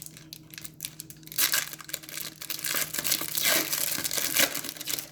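Crinkling and tearing of a hockey card pack wrapper being ripped open, with a dense run of rustles and small clicks as the cards are handled. It is loudest in the second half.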